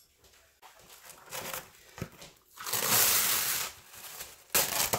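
Plastic food wrap (Press'n Seal) rustling and crinkling as it is handled, with a long loud stretch of crinkling about halfway through and a shorter one near the end.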